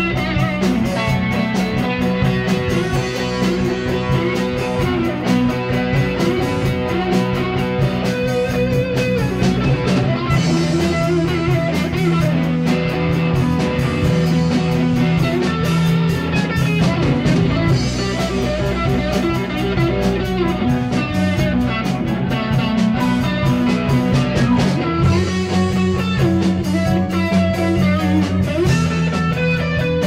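Live rock band playing: amplified electric guitar over bass guitar and drums, at a steady, loud level.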